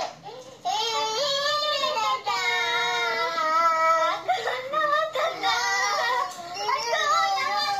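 A toddler singing in a string of long, drawn-out high notes with short breaks between them.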